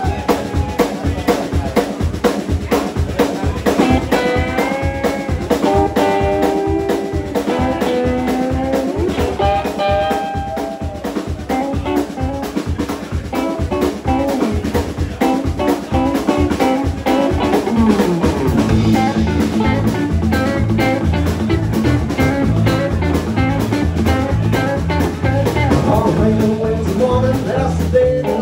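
Live electric band playing an instrumental intro: a drum kit keeps a steady beat under electric guitar lead lines with bent notes. About two-thirds in, a downward slide leads into a fuller groove, with the bass and drums filling out the low end.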